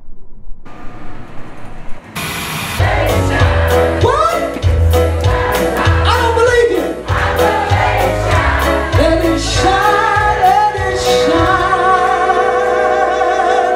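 A band playing live with a woman singing lead, over bass, drums and keyboard. The music cuts in about two seconds in, after a quieter stretch of background noise.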